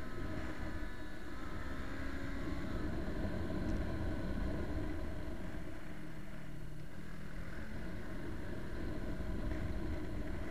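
Motorcycle travelling at road speed: a steady rumble of wind and road noise over the microphone, with the engine's note drifting up and down underneath.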